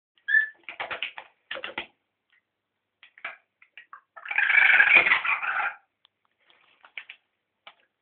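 Rainbow lorikeet giving a short chirp, then bursts of harsh chattering, the longest and loudest about halfway through.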